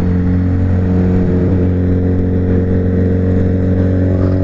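Sport motorcycle's engine running at steady revs while cruising, one constant drone over a steady haze of road noise.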